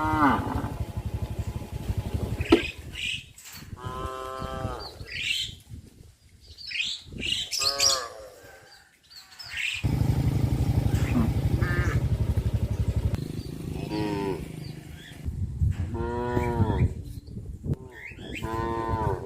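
Cattle mooing, about five separate long calls spread across the stretch, some higher and some lower, with a low rumbling noise underneath at times.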